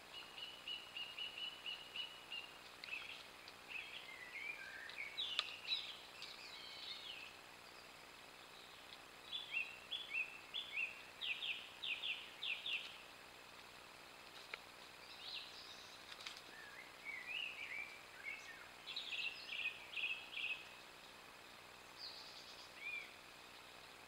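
A songbird singing clear whistled phrases separated by pauses of a second or two, some phrases made of quickly repeated notes, over a steady faint hiss.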